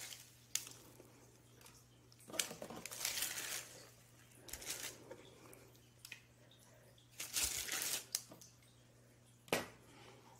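Wax paper crinkling and rustling in several short bursts as almond-bark-coated cookies are peeled off it and lifted, over a faint steady low hum.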